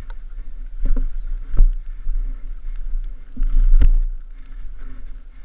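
Wind rumbling on a helmet camera's microphone as a mountain bike is ridden over rough trail, with sharp knocks and rattles as the bike hits bumps, the loudest about one and a half and four seconds in.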